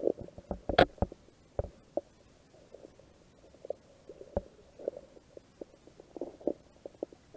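Water sloshing and gurgling against a kayak, with irregular knocks; the sharpest knock comes about a second in.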